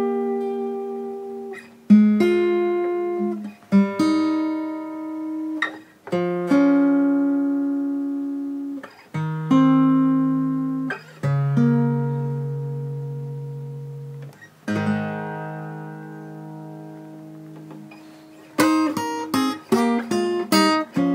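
Acoustic guitar playing two-note shapes in A, moving between neck positions. Each shape is struck and left to ring for a second or two, then a quicker rhythmic run of picked notes comes near the end.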